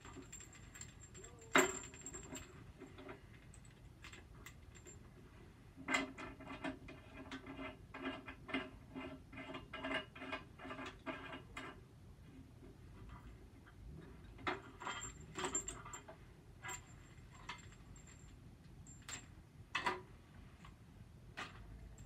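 Small stainless steel draft fittings (tailpieces and beer nuts) clicking and clinking as they are handled and threaded together by hand. Scattered sharp clicks, with a run of quick, even clicks lasting several seconds in the middle.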